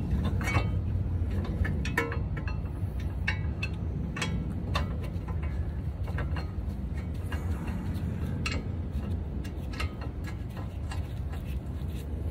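Scattered light metal clicks and clinks from a new Honda Civic front brake caliper being worked by hand onto its bracket over the rotor, over a steady low rumble.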